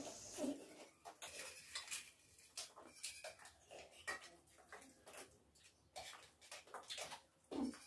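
Faint, scattered clinks and scrapes of metal spoons against stainless steel bowls as people eat cornflakes with milk.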